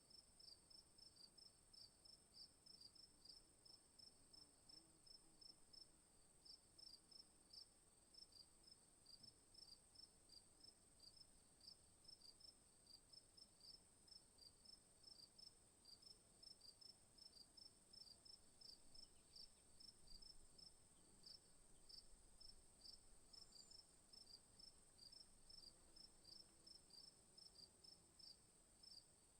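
Faint crickets chirping in a steady rhythm, about three chirps a second, over a continuous high-pitched insect drone.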